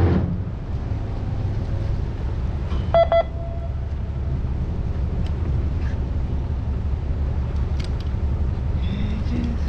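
Fishing boat's engine running with a steady low rumble. About three seconds in, a short electronic double beep sounds.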